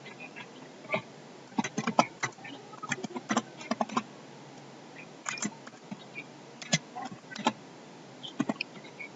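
Typing on a computer keyboard: irregular keystroke clicks in short clusters, as a title is typed in.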